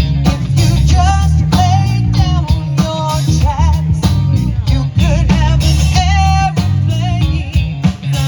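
Live band playing a rock/soul cover, with a wavering lead melody over a strong bass line and steady drum beat.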